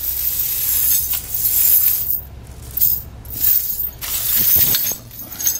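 Steel snow tire chains jangling and scraping across a hard floor as they are dragged and slid behind a tire, in several bursts of clinking links.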